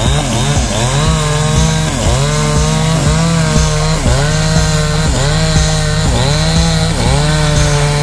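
Chainsaw running under load while cutting wood. Its engine pitch dips sharply and recovers again and again, roughly once a second.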